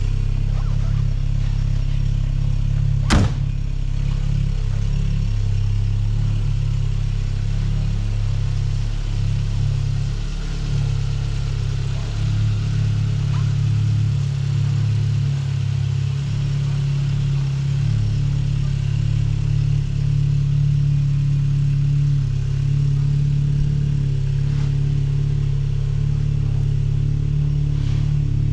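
1982 Volkswagen Rabbit Caddy pickup engine running steadily at idle shortly after a cold start. A single sharp click cuts through about three seconds in.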